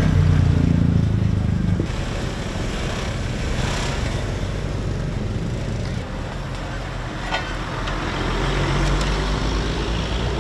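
Diesel engine of a road roller running, louder for the first couple of seconds, easing off through the middle and building again near the end.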